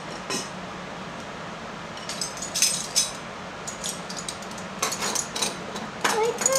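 Metal measuring spoons clinking together, with light taps against a glass mixing bowl: a scatter of small, bright clinks.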